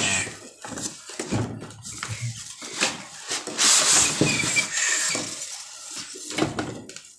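Unboxing: a cardboard carton sliding and scraping as it is lifted off, with polystyrene foam packing blocks and plastic wrap rubbing and crinkling, and scattered light knocks. The loudest stretch of rustling falls about halfway through.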